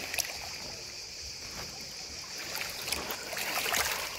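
Small sea waves lapping and trickling over a pebble beach at the water's edge, with a louder wash near the end.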